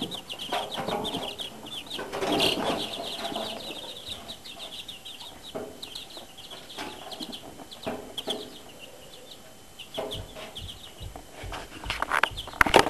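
Baby chicks peeping steadily, many short high chirps a second, with knocks and rustling that grow louder near the end.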